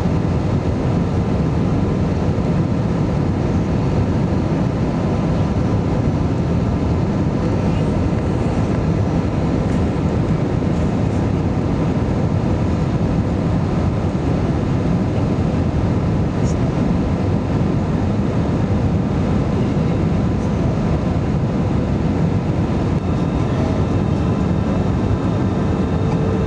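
Steady cabin noise inside an Airbus A320-214 in flight: a constant low rush of airflow and engine hum, with a few faint steady tones over it.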